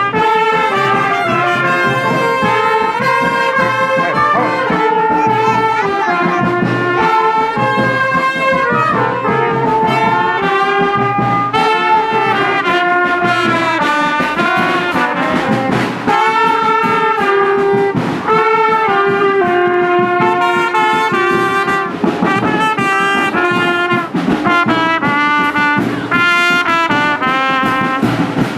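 Music led by brass horns, trumpets and trombones playing held melodic lines over a steady drum beat.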